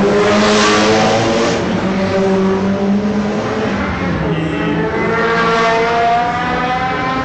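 KTM X-Bow's turbocharged four-cylinder engine revving hard as the car passes close by. The engine note then dips and climbs again as it accelerates away.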